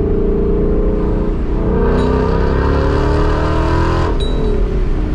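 Supercharged Ford Mustang GT 5.0 V8, heard from inside the cabin, accelerating: its pitch rises, with a supercharger whine climbing over the engine from about a second and a half in, then cuts off suddenly just after four seconds as the engine drops back to a lower, steady note.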